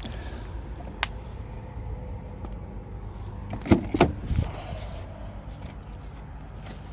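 A car door being shut: two sharp knocks close together about halfway through, with a smaller knock earlier, over a low steady background rumble.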